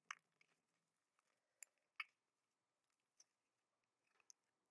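Glue-based fluffy slime being squeezed and kneaded by hand, giving faint scattered clicks and little pops, about seven over a few seconds, against near silence.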